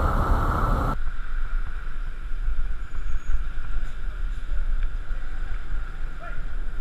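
Noise of a motorcycle riding in traffic, recorded on a helmet camera, cuts off abruptly about a second in. It gives way to a steady low rumble of wind buffeting the camera's microphone.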